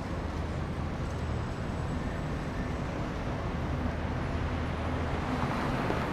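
Steady low rumble of outdoor background noise with a constant low hum, of the traffic kind.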